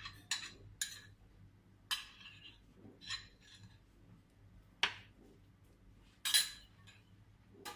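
A spoon clinking and tapping against dishes in a handful of separate clinks spread over several seconds, the sharpest about five and six and a half seconds in, as mustard is spooned out for a hamburger mix.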